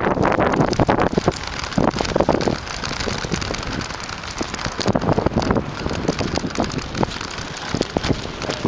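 Bicycle riding fast over sandy dirt: wind buffeting the microphone over the crunch of the knobby tyres, with frequent rattling knocks from the bike as it bumps along.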